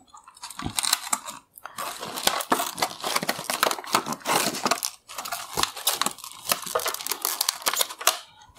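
Clear plastic blister packaging crinkling and crackling as it is cut open with scissors and pulled apart, with a brief pause about halfway through.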